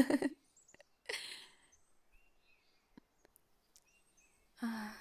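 Faint birdsong of a forest ambience track, short chirps scattered throughout. A woman's voice makes brief wordless sounds over it: a short voiced sound at the start, a breathy one about a second in, and another voiced sound near the end.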